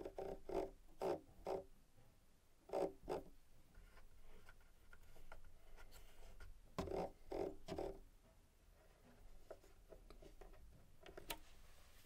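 Fingers clicking the buttons and controls of an Arturia AudioFuse Studio audio interface: faint quick clicks in small clusters of two to four, with a few fainter single clicks near the end.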